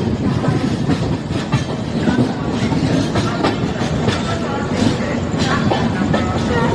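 Passenger express train rolling along the track: a steady rumble of the coaches with repeated clicks of the wheels over rail joints.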